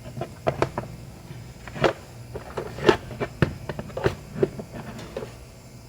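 Irregular light clicks and taps of hands and small tools handling a laptop charger and its cable, over a faint steady low hum.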